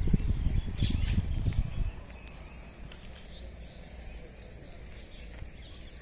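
Wind buffeting the microphone with an irregular low rumble that stops about two seconds in, leaving faint outdoor ambience: a steady high thin tone and a few scattered bird chirps.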